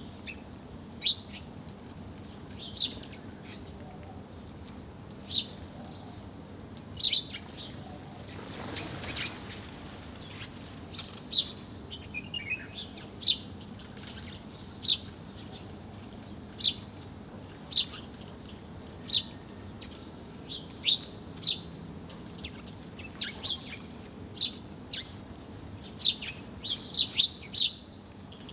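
Small birds chirping: short, sharp high chirps every second or two, coming faster in a quick run near the end. A brief rushing sound about eight seconds in, which may be wingbeats.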